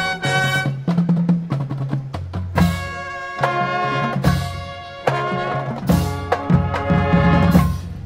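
Marching band's brass, saxophones and drumline playing loud held chords punctuated by sharp accented drum-and-brass hits, with the music cutting off abruptly right at the end.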